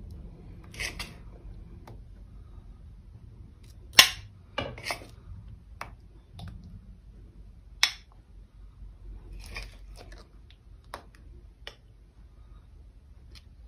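Metal spoon scraping and clinking against a bowl and a glass as thick fruit cream is spooned into the glass: scattered light clinks and short scrapes, the sharpest clink about four seconds in and another near eight seconds.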